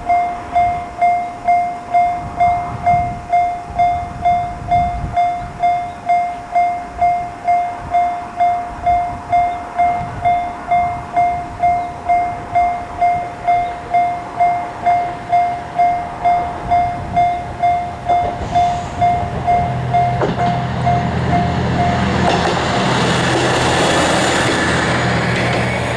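Japanese level-crossing electronic warning bell ringing 'kan-kan' at about two strikes a second. About twenty seconds in, a Matsuura Railway diesel railcar passes over the crossing, its engine and wheel noise rising until it covers the bell.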